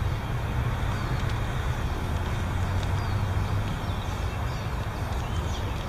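Steady low rumble of city traffic, with faint, short bird chirps now and then.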